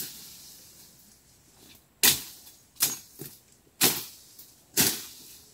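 A hand tool chopping at cassava stems: four sharp strikes about a second apart, with a couple of lighter ones between them.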